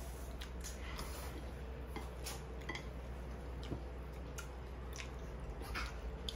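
Chopsticks clicking and tapping against plates, bowls and a plastic food tray at a meal, with soft eating sounds between the clicks.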